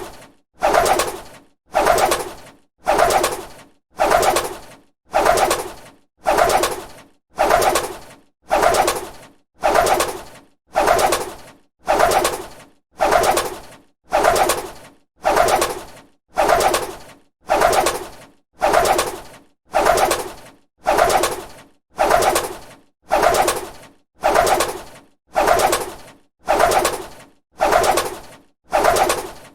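A bird's wings flapping, a short flutter of wingbeats that starts sharply and fades, repeated at an even pace of about one burst a second.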